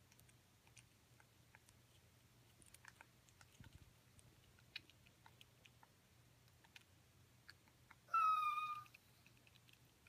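African grey parrot eating an orange slice: faint, scattered wet clicks of its beak and tongue working the flesh. About eight seconds in, a loud short whine-like call, held at one pitch and sagging slightly, lasting under a second.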